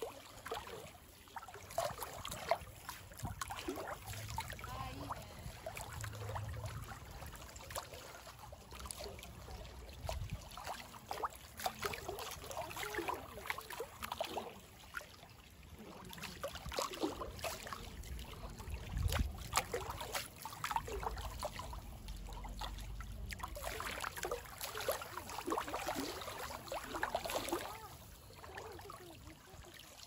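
Water trickling and splashing in a continuous, irregular patter, with occasional low rumbles.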